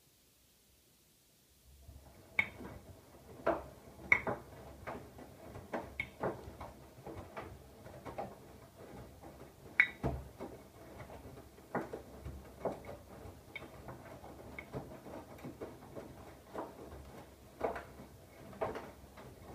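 Siemens iQ700 washing machine on a wash cycle: after a short pause, the drum starts turning again about one and a half seconds in, with a low motor hum and irregular clicks and knocks from the laundry tumbling.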